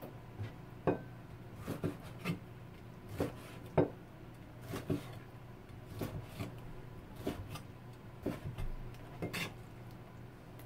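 A Chinese cleaver cutting squid on a plastic cutting board: irregular knocks as the blade strikes the board, about one to two a second. The loudest knock comes a little under four seconds in.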